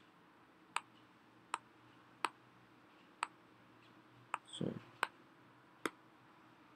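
Stylus tip tapping on a tablet's glass screen seven times at an uneven pace, about one tap a second, while tools and pen colours are selected. A brief low sound comes about two-thirds of the way through.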